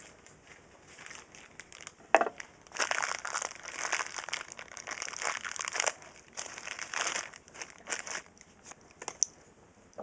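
Plastic crinkling and rustling as it is handled, in long stretches through the middle, with a sharp click about two seconds in and a few small clicks near the end.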